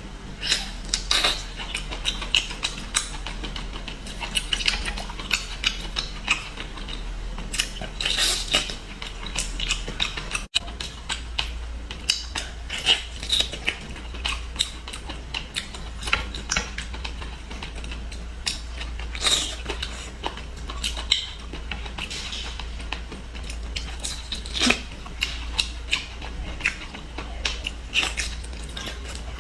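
Close-miked eating sounds of seafood: irregular crisp crunches, clicks and chewing, over a low steady hum.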